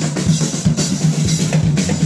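Music with a steady drum-kit beat, bass drum and snare hits.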